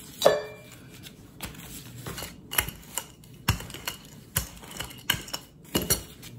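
A wooden rolling pin and hands working small rounds of empanada dough on a hard counter. About ten irregular sharp taps and knocks come as the pin is rolled, lifted and set down, and the dough edges are pressed.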